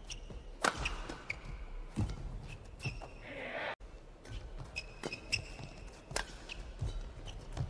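Badminton rally: several sharp racket strikes on the shuttlecock, a second or so apart, with short high-pitched shoe squeaks on the court floor in between.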